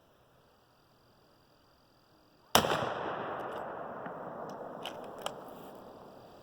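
A single AR-15 rifle shot about two and a half seconds in, a sharp crack followed by a long fading echo. Two faint clicks come a couple of seconds after the shot.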